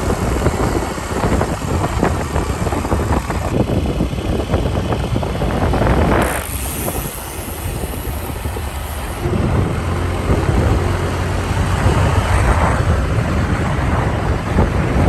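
Motor vehicle engine running on the move under loud broad road and air noise, with a steady low hum that grows stronger about nine seconds in.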